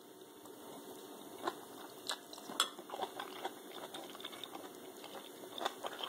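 A person chewing a mouthful of Thai red curry fish stir-fry with rice, close to the microphone: soft, irregular chewing with a few sharp clicks.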